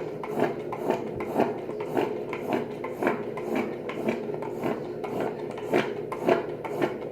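Wooden popsicle stick stirring glue and foaming soap in a bowl, scraping against the bowl in quick strokes, about two a second.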